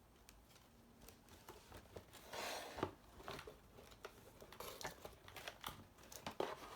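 Toy packaging being handled: scattered crinkles, rustles and light taps of plastic and cardboard, with a longer rustle about two seconds in.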